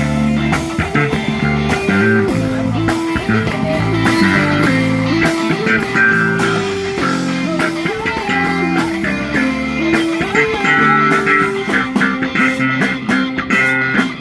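Instrumental break of a worship song: a guitar plays a sustained melodic lead line over band accompaniment, with no singing.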